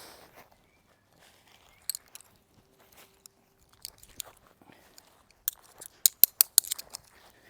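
Lanshan 1 tent fabric crinkling and rustling as it is handled while the tent comes down, with a quick run of sharp crackles a little over halfway through.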